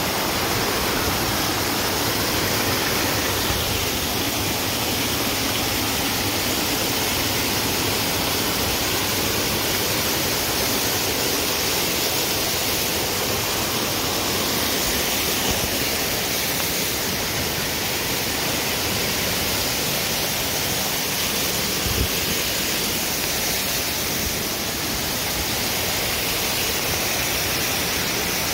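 Small waterfall cascading over rock ledges: a steady, unbroken rush of white water.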